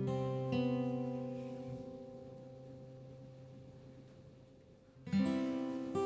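Soft background music on acoustic guitar: a few plucked notes ring out and slowly fade, and a new phrase of notes starts about five seconds in.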